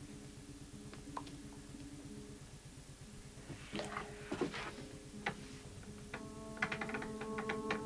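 Quiet background music of sustained low notes that change in steps, growing fuller near the end as higher notes come in. A few soft clicks and knocks sound about halfway through and again near the end.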